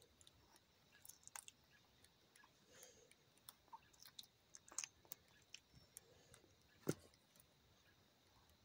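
A puppy licking and chewing, making faint scattered wet clicks and smacks, with one sharper click about seven seconds in.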